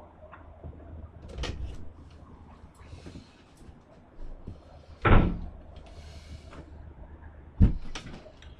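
A door being opened and shut, heard as several knocks and thumps, the loudest about five seconds in and another near the end, over a low steady hum.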